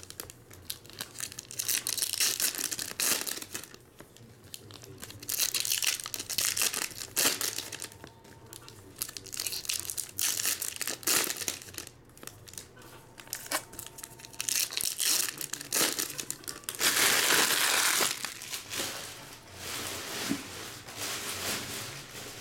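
Foil trading-card pack wrappers crinkling and tearing as packs are opened by hand, in repeated bursts. A longer, louder stretch of crinkling comes about three quarters of the way through.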